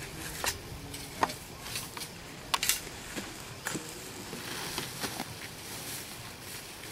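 Shovels digging into soil: a handful of separate scrapes and chops of the blades in the dirt, spread through the first four seconds, over a steady hiss.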